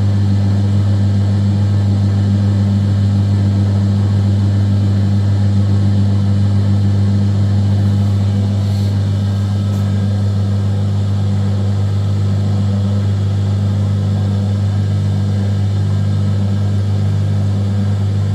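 Metal lathe running, spinning a workpiece fitted with a spider on its faceplate: a loud, steady hum from the lathe's motor and drive.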